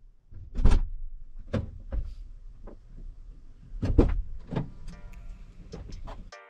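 A run of irregular knocks and thumps over a low rumble, with music coming in near the end.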